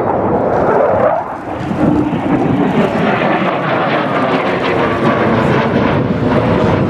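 Display aircraft engine noise from a fighter flypast, the pitch falling quickly about a second in as it passes, then a steady roar.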